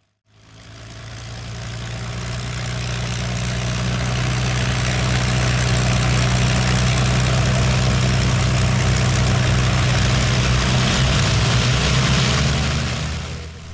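Avro Lancaster's Rolls-Royce Merlin V12 piston engines running steadily with their propellers turning, a low engine drone under a broad rush of propeller wash. The sound fades in over the first few seconds and fades out near the end.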